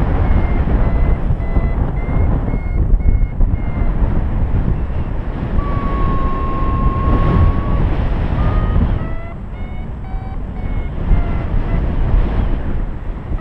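Paragliding variometer beeping in a steady rhythm of short beeps, about two a second, their pitch stepping up and down with the climb rate, which is the instrument signalling lift. In the middle the beeps give way to one held tone for about two seconds. Loud wind rush from the airflow on the microphone runs under it all.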